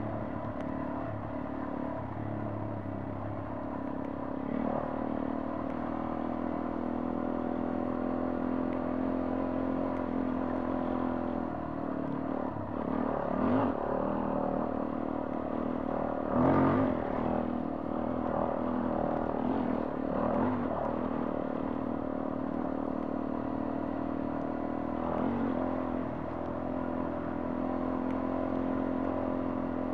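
Motorcycle engine running at a steady riding pace over a rough dirt track, with the bike rattling over the bumps. There are a few louder jolts about halfway through.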